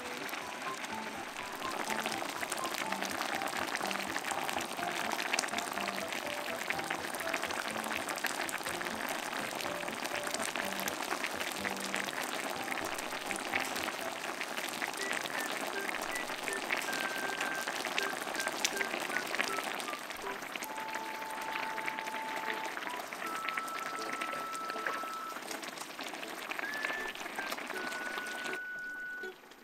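Spicy soft-tofu and Spam stew simmering in a pan: a steady, dense bubbling and crackling that cuts off shortly before the end. Light background music with a simple melody of held notes plays over it.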